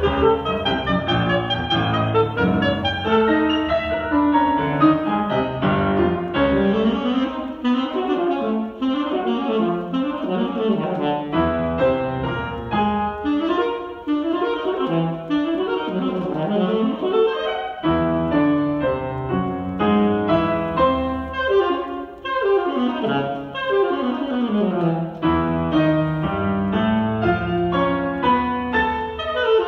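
Alto saxophone and grand piano playing a classical duet, with quick rising and falling runs over low piano notes, recorded through a cell phone microphone.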